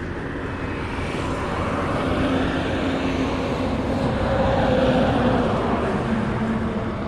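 A motor vehicle passing on the highway: a rush of engine and tyre noise with a steady hum that builds, is loudest about four to five seconds in, and then fades. Low wind rumble on the microphone runs underneath.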